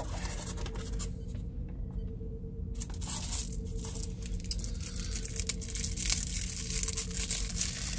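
Clear plastic bag being handled and pulled open, with dense crinkling and crackling that starts about three seconds in; before that, only a few light handling clicks.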